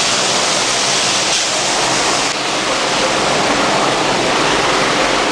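Heavy rain pouring down on wet pavement, a loud, steady hiss.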